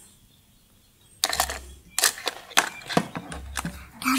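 Plastic toy cookware and utensils clacking and knocking together as a child handles a toy kitchen set: an irregular run of sharp clicks starting a little over a second in.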